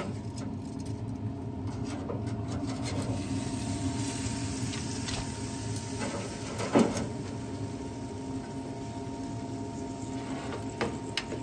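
Metal tongs scraping and clicking on a smoker's steel grate as pieces of smoked beef are lifted off and set on a metal sheet pan, with one sharper clank about seven seconds in. A steady hum runs underneath.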